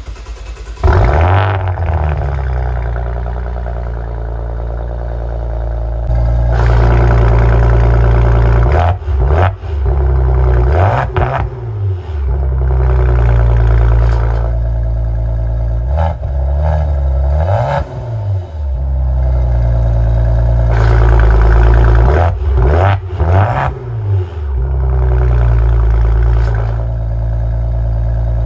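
Maserati Ghibli engine starting about a second in, then idling and being revved again and again, each rev rising and falling back to idle.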